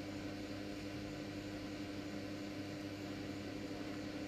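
Wall-mounted electric fan running: a steady low hum with an even hiss.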